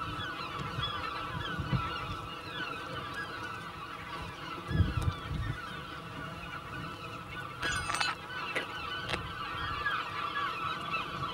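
A colony of large gulls calling, many short overlapping cries at once. A brief low rumble comes about five seconds in, and a couple of sharp clicks about eight and nine seconds in.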